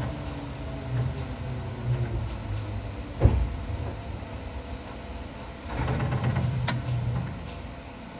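Interior running noise of a Seibu Tamako Line train (set 263F), with a faint falling whine. A heavy clunk comes about three seconds in, and a louder rush of noise with a sharp click follows near the end.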